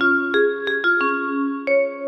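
Children's-song music in a sparse instrumental passage: a short tune of about six single struck notes that start sharply and ring on, without singing.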